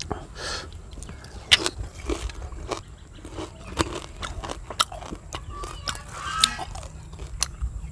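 Close-up crunching and chewing of crispy deep-fried silver carp, a run of irregular sharp cracks as the small fried bones break between the teeth.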